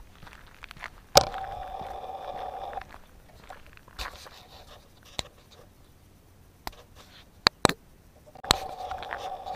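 Several sharp knocks and rubs from a hand handling the camera, two of them close together near the end, with a steady mid-pitched hum that comes in after the first knock, drops out and returns.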